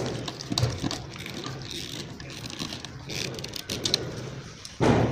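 Handling noise of stiff insulated wires being bent and worked around a breaker panel, with scattered light clicks and taps and a louder thump near the end.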